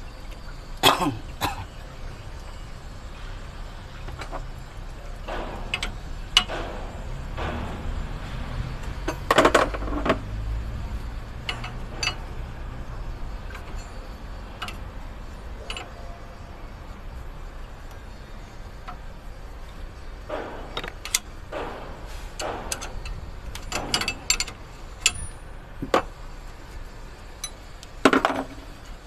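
Metal spanners clinking and knocking against engine parts in a truck's engine bay, in scattered single strikes, over a low steady rumble that swells for a few seconds near the middle.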